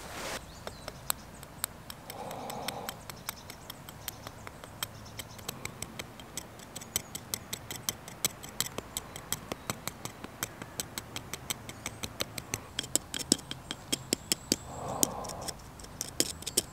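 Point of a knife tapping repeatedly on a hen's eggshell, chipping a small hole in it: a run of light, sharp taps, a few a second, coming faster and louder after about twelve seconds.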